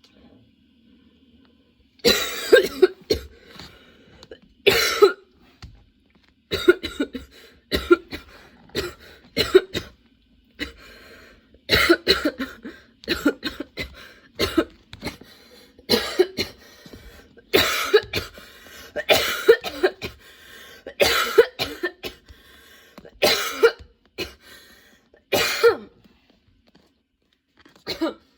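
A woman in a long coughing fit: short, loud coughs come about one a second, often in quick pairs and runs, starting about two seconds in and thinning out near the end.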